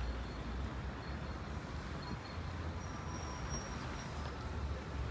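Outdoor city street ambience: a steady low rumble of traffic, with a few faint short high chirps over it.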